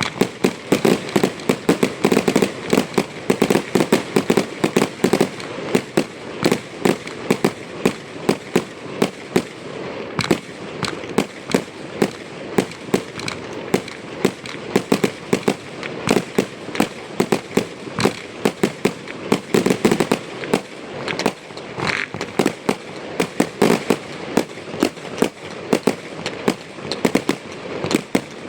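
Aerial fireworks display: a dense, continuous barrage of shell bursts and bangs, several a second, with crackling between them.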